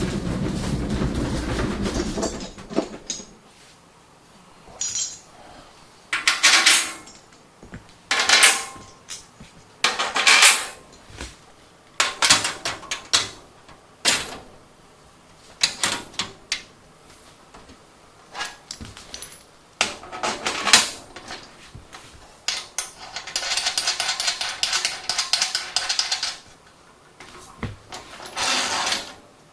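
Metal parts clanking and clinking as they are handled, in short separate knocks and rattles, with a longer scraping stretch about two-thirds of the way through. A low steady rumble runs for the first few seconds.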